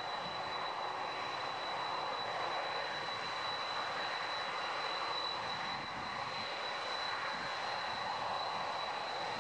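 Boeing 747-400's four jet engines running at taxi power: a steady rushing noise with a thin, steady high-pitched whine.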